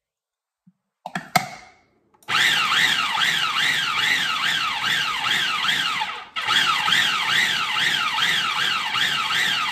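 Food processor motor running in two long pulses, chopping butter, flour and egg into pie dough, with a whine whose pitch swings up and down a couple of times a second; it breaks off briefly in the middle. A click comes just before it starts.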